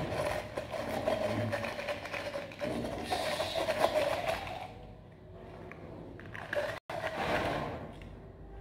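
A straw being stirred and pushed around inside a plastic cup of thick layered mango drink, a rough scraping and churning that stops about halfway through.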